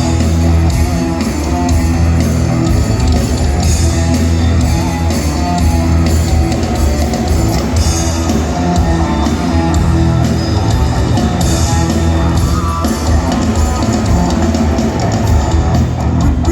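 Rock band playing an instrumental passage with no singing: drum kit and guitars, loud and steady.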